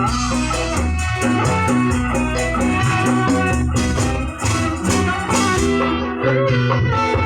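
Loud band music with guitar, bass and a steady drum beat, played through a sound system during a sound check.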